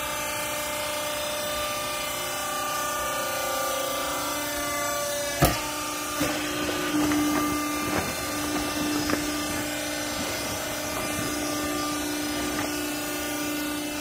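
Hydraulic power unit of a vertical used-clothes baler running with a steady hum. A single sharp knock comes about five seconds in, followed by scattered rustling and light knocks as a woven bag and clothing are handled in the baling chamber.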